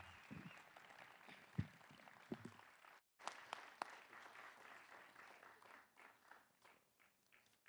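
Faint, scattered applause from an audience after a song, thinning out over the last couple of seconds. A few soft low thumps come early on.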